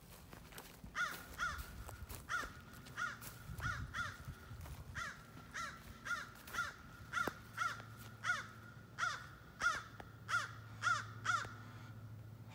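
Crows cawing: a long run of short caws, mostly in quick pairs, starting about a second in and continuing almost to the end.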